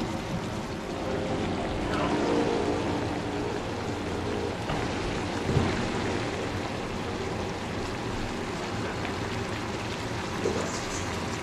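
Onions simmering in a vinegar and brown sugar sauce in a frying pan, a steady bubbling sizzle, with one sharp tap about five and a half seconds in.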